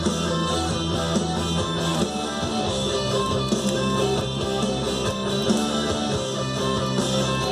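Rock music with electric guitar, playing steadily.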